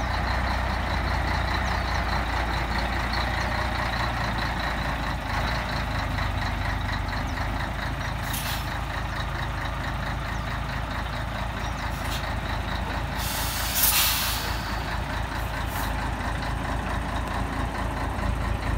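Scania 113 Top Line truck's diesel engine running at low speed while the truck and its loaded semitrailer creep along. Air-brake hisses cut in: short ones about halfway through, and a longer, louder one about three-quarters of the way in.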